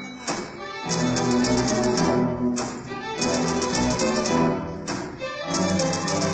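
Bowed-string ensemble playing sustained chords, with phrases of rapid typewriter-key clicking, each about a second and a half long, separated by short breaks.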